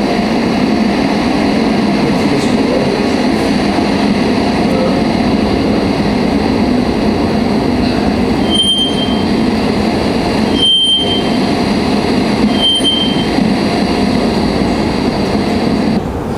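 Three-wattled bellbird calls from a recording played back through the room's speakers: three short, high notes about two seconds apart in the second half, over a loud, steady background noise.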